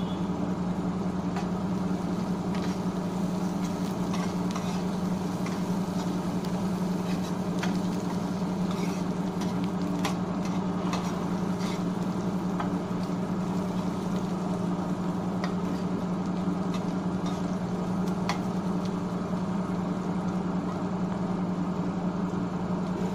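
Chopped onions and cumin seeds frying in oil in a nonstick pan: a sizzle with scattered crackles and occasional spatula stirring, over a steady low hum.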